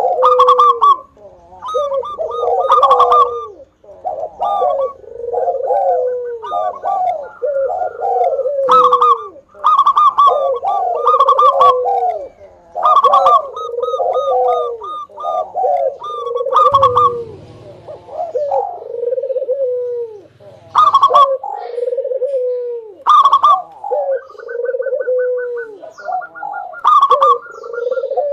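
Zebra dove (perkutut) singing loudly, its rolling coo phrases repeated over and over about every second or two with short pauses between.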